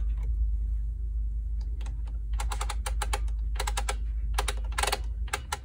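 Light, rapid plastic clicking and rattling from the Addi Express knitting machine's needles and needle ring as hands work the yarn onto it. The clicks come sparsely at first, then in quick dense runs from about two seconds in.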